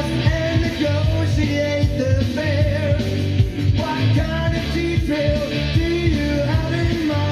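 A song with singing and guitar, in a rock style, playing from a vinyl record on a Denon DP-45F turntable through a Shure M97xE cartridge.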